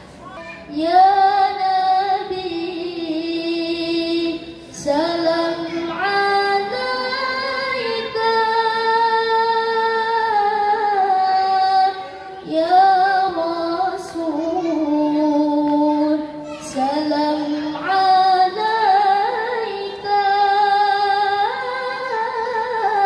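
A young woman's solo voice through a microphone, chanting Quranic verses in the melodic tilawah (qori'ah) style: long held notes with ornamented runs, in phrases of several seconds each with short pauses for breath.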